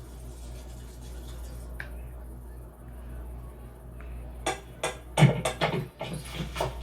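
Film sound effects: a steady low hum, then from about four and a half seconds in a quick run of loud, sudden knocks and clattering hits.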